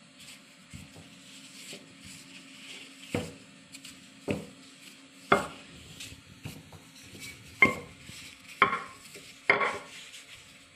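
Kitchen utensils knocking against dishes: six sharp knocks, about a second apart, starting about three seconds in.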